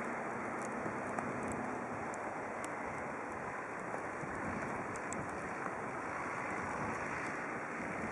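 Steady hiss of distant road traffic at a snowbound crossroads, with faint scattered ticks on top.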